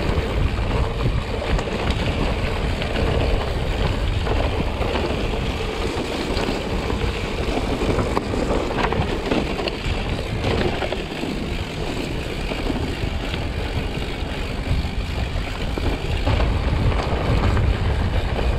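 Mountain bike tyres rolling steadily over a dirt trail, with a constant low rumble and scattered small clicks and rattles from the bike.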